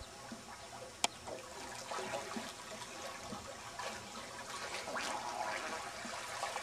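Swimming-pool water splashing and sloshing in small, irregular splashes as bodies move through it, with a single sharp click about a second in.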